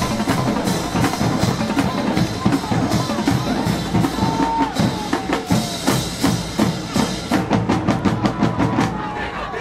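High school marching band drumline playing a percussion cadence: snare and bass drums beating in a dense, driving rhythm, breaking into fast rolled strokes near the end.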